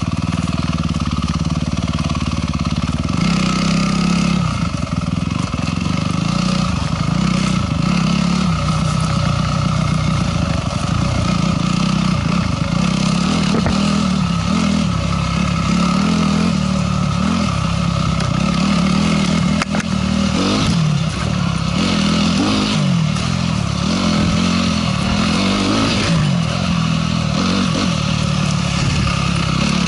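Dirt bike engine running while being ridden along a trail, its revs rising and falling repeatedly as the throttle is worked.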